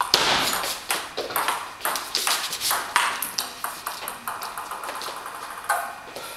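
Table tennis rally: the ball clicking off the rackets and the table in quick succession, the hits coming every fraction of a second.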